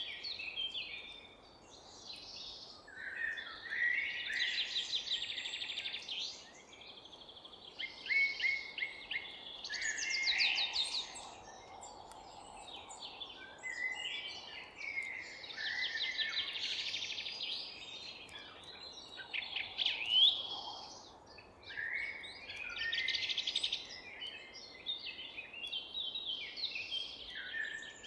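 Several songbirds singing at once in a forest dawn-chorus style, with rapid trills and chirped phrases overlapping in bouts every few seconds over a faint steady background hiss.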